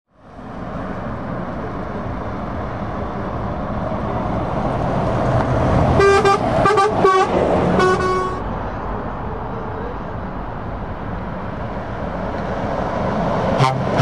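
Lorries running past on a road, their engines and tyres making a steady noise. A truck horn sounds a run of four short toots about six seconds in, and a quicker burst of horn pulses comes near the end as a lorry approaches.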